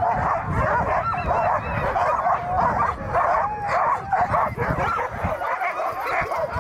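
A team of harnessed sled dogs yipping, whining and barking all at once, a dense, unbroken chorus of overlapping high yelps and cries: the excited clamour of working dogs waiting on the line to run.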